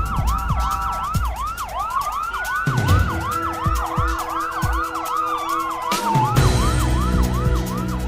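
Electronic intro music with a fast, siren-like wailing sweep that repeats about three times a second over a steady beat. A long falling glide runs through the middle, and the bass fills in about six seconds in.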